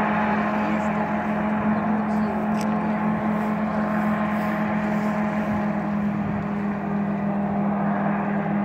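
Small hovercraft running across the water: a steady drone from its engine and propeller, with a strong low hum and fainter higher tones held over a hiss.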